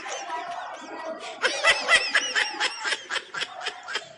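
Snickering laughter: a run of quick, high-pitched laugh pulses, loudest about a second and a half to three seconds in.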